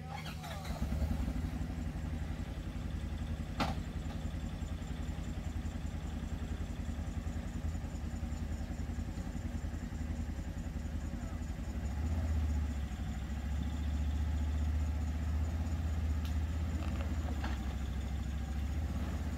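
A vehicle engine running steadily at a low rumble, a little louder about twelve seconds in. A single sharp click comes a few seconds in.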